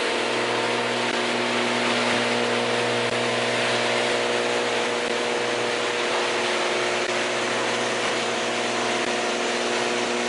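Electric garage door opener running as it lifts a sectional garage door, a steady motor hum over an even rushing noise from the moving door.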